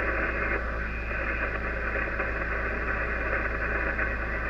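Icom IC-756PRO HF transceiver's receiver audio: steady static hiss of the 40-metre band in lower sideband as the main dial is tuned up the band between stations, with no clear voice, over a steady low hum.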